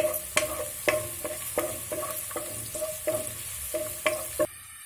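Garlic, green chillies and spring onions frying and sizzling in hot oil in a nonstick pot while a spoon stirs them, knocking against the pot about three times a second. The sizzling and stirring cut off near the end.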